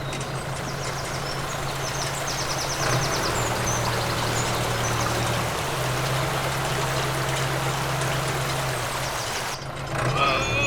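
Steady rush of running water that cuts off suddenly near the end, with a low steady hum underneath and a few brief high chirps.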